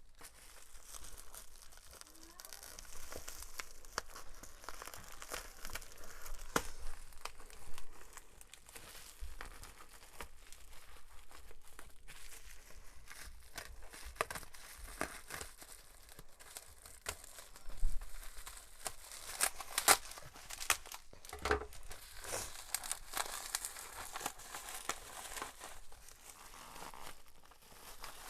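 Packaging crinkling and tearing as a boxed battery pack is unwrapped by hand, a continuous rustle with small crackles and a few sharper knocks past the halfway point.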